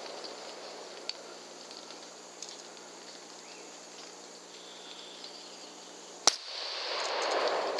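A single rifle shot about six seconds in: one sharp, loud crack, with a few faint clicks before it and a swelling hiss of noise after it.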